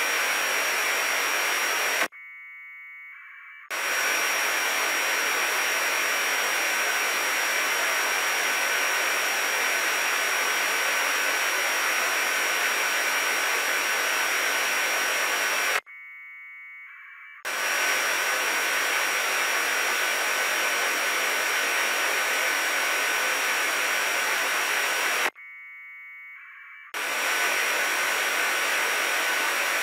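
Unsquelched FM receiver hiss from an RTL2832 SDR dongle, broken three times by APRS packet bursts from a Yaesu VX-8DR handheld: warbling 1200-baud AFSK data tones, each about a second and a half long. The hiss drops away while each packet plays.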